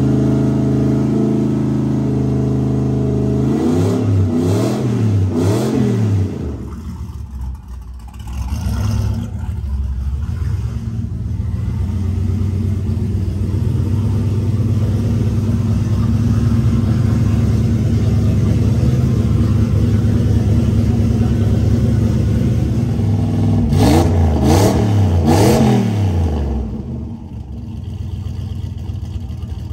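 Turbocharged LS1 5.7-litre V8 in a VL Commodore running at a steady idle, blipped three times in quick succession a few seconds in and three times again near the end. The idle sags briefly after the first blips.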